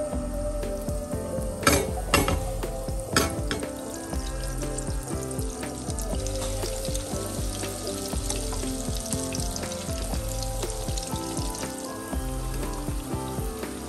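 Butter and olive oil sizzling in a frying pan as flour-coated chicken pieces are laid in with tongs. The sizzle grows thicker and louder after about six seconds, and there are a few sharp clicks in the first few seconds.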